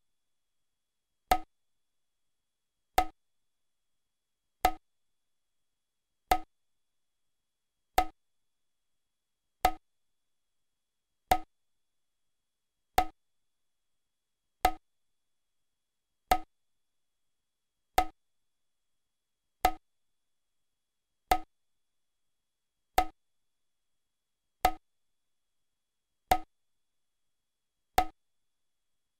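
A short, pitched percussive knock repeating at a slow, perfectly even pulse, about once every second and two-thirds, with dead silence between strikes.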